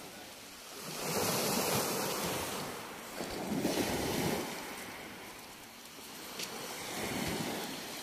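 Small sea waves washing up onto a pebble beach, swelling and fading about every three seconds.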